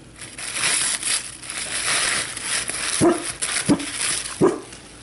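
An American bulldog tearing and chewing tissue-paper gift wrapping, the paper crinkling and ripping, with three short grunts from the dog in the second half.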